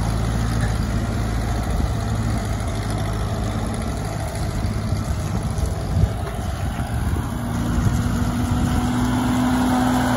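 Ford 9N tractor's four-cylinder flathead engine running steadily as the tractor is driven, backing up and then pulling forward. There is a single knock about six seconds in, and a steadier, higher hum for the last few seconds.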